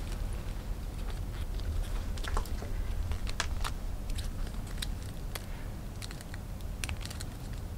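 Small sharp clicks and taps of metal buckles and ring hardware on a shiny black high-heel sandal's straps being fastened by hand, coming irregularly over a low steady hum.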